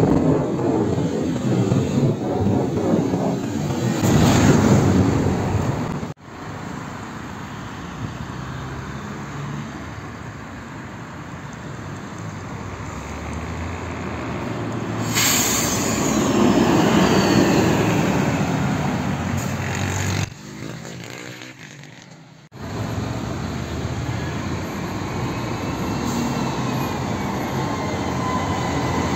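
City buses, including articulated buses, driving past on a road: diesel engines running and tyre noise, in several short clips with abrupt cuts. Near the end, as an articulated bus passes close by, a high whine slides down in pitch.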